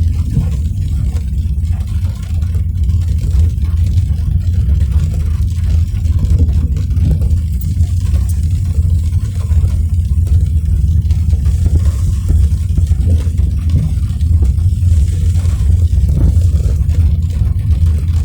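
A car driving: a steady low rumble of engine and road.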